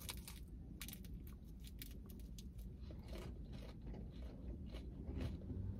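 Crisp churros being bitten and chewed: a run of short, irregular crunches over a faint low hum.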